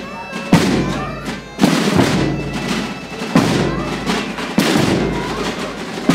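Bass drums of a Holy Week drum band struck with padded mallets in slow, heavy beats about every second and a half, each stroke ringing on, over a dense steady din.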